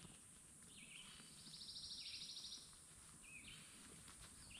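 Faint birdsong: a rapid high trill lasting about a second, with a few short chirps that drop in pitch before and after it.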